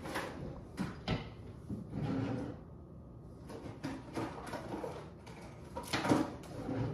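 Kitchen handling noises: several scattered knocks and clicks as things are moved and set down, with a short rustle about two seconds in.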